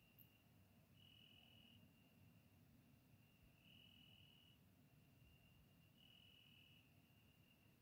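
Faint cricket song: a steady high-pitched trill that swells louder for under a second about every two and a half seconds, three times, over a low hiss.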